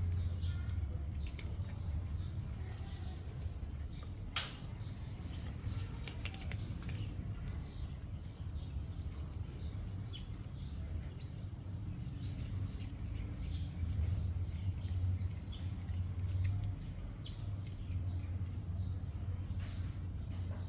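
Birds chirping: many short, high calls scattered throughout, over a steady low hum.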